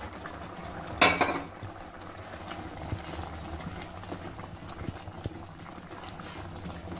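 Chicken curry simmering in an aluminium pot while a wooden spatula stirs it, with a few small knocks of the spatula. A single brief loud clatter about a second in.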